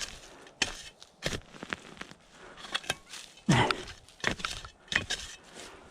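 Digging tool chopping and prying into soil and vine roots: a string of sharp knocks and scrapes, with a short grunt of effort about three and a half seconds in.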